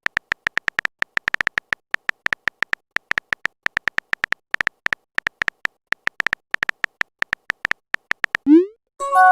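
Rapid, irregular phone-keyboard typing clicks, several a second. Near the end comes a short rising swoop, then a chiming message tone of a few notes that rings on.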